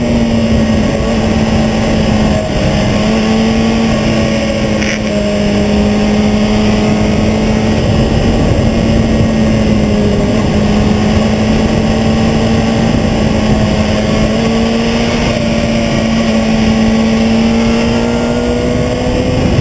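Sport motorcycle engine running hard and steady through a long corner, its note easing slightly mid-way and climbing again near the end, over heavy wind rush on the bike-mounted camera.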